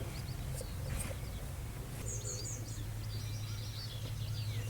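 Birds chirping and trilling in the background, with quick runs of high notes about two and three seconds in, over a steady low hum.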